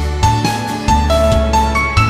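Background music: a light piano or keyboard tune over a steady bass beat.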